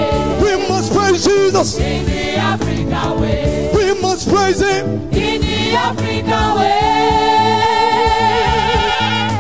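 Gospel music: voices singing over instrumental accompaniment with a steady repeating bass line, ending on one long held note with vibrato in the last few seconds.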